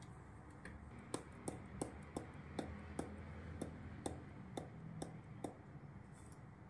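About a dozen light, sharp taps at roughly two a second, a plastic bottle of asafoetida powder being tapped to shake the powder out onto a steel spoon; the tapping starts about a second in and stops near five and a half seconds.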